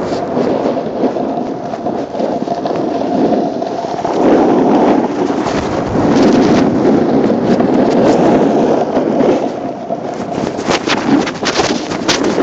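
Loud rumbling and rustling from a covered camera microphone, swelling and fading: wind buffeting and fabric rubbing over it. A run of sharp clicks and knocks comes near the end.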